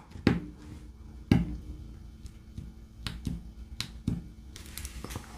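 Light, irregular clicks and taps of a diamond painting drill pen and small plastic drills as resin drills are picked up and pressed onto the canvas, about eight over a few seconds with a small cluster near the end.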